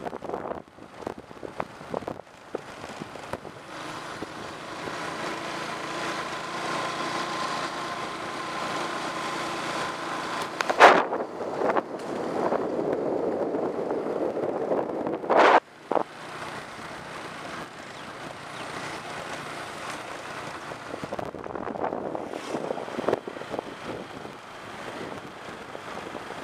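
Motor scooter engine running while riding, with wind rushing over the microphone. Two sharp thumps, about eleven and fifteen seconds in, are the loudest moments.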